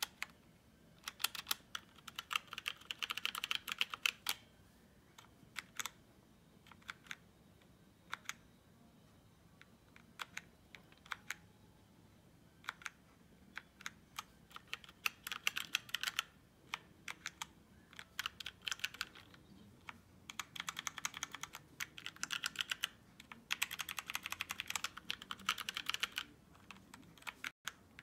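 Keys of a 60% mechanical keyboard with Outemu Brown switches being pressed: quick runs of rapid keystrokes broken by slower single presses.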